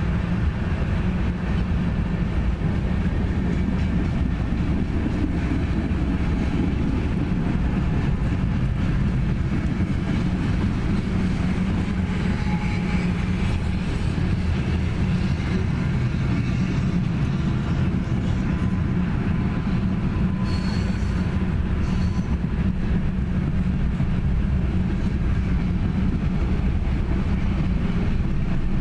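Freight cars rolling past on steel rails: a steady rumble of wheels and car bodies, with a brief high wheel squeal about two-thirds of the way through.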